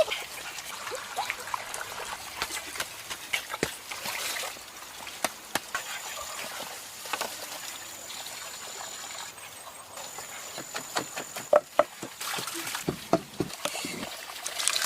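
Water trickling and splashing, with many short clicks and knocks throughout.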